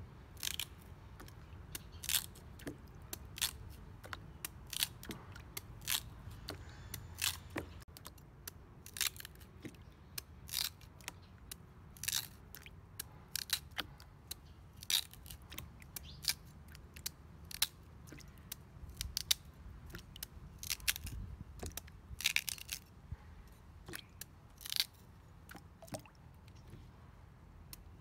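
Cleaver chopping chunks off a raw sweet potato held in the hand: a sharp, crisp crunch with each cut, coming irregularly about one or two a second.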